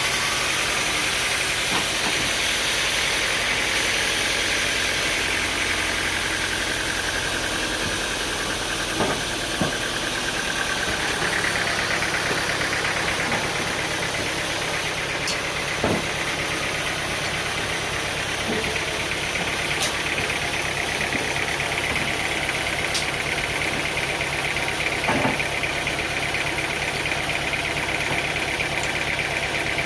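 Engine-driven machinery running steadily, with a high whine that shifts up a little partway through and a few sharp knocks.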